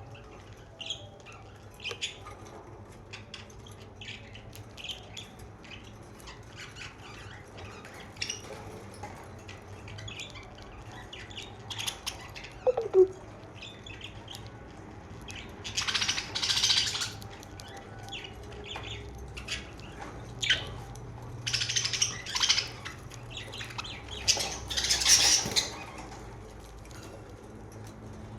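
Pet budgerigars chirping and chattering: a steady run of short high chirps, with several louder, harsher bursts past the halfway point.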